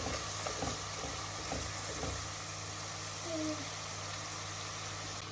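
Ginger and garlic frying in hot oil in a pan, a steady sizzle, with a few knocks of a stirring spoon against the pan in the first two seconds.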